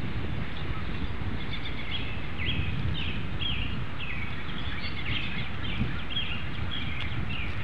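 Steady low outdoor rumble, with a bird's short chirping notes repeated about twice a second over it.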